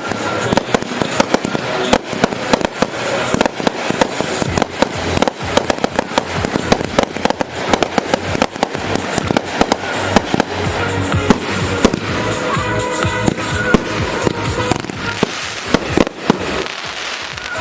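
Professional fireworks display: a dense, continuous barrage of sharp bursts and crackling reports, several a second.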